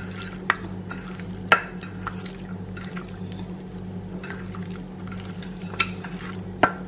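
Wet, sticky clicks and squelches of marinated chicken pieces being turned and pressed down by hand in a stainless steel bowl, a few sharp ones spread apart, over a steady low hum.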